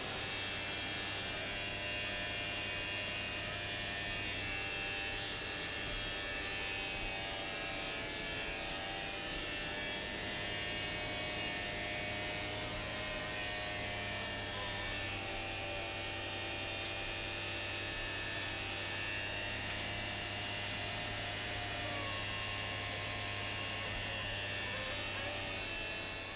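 Hydrovac excavator's vacuum system running: a steady drone with a high whine over it as the suction hose draws mud and water out of the excavation.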